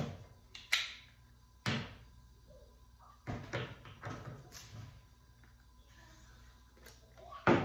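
Sharp clacks and knocks of steel pliers and a small metal can of PVC pipe solvent handled on a tabletop while the pliers work the can's tight cap loose. Three single clacks come in the first two seconds, a cluster of knocks follows about halfway through, and another comes near the end.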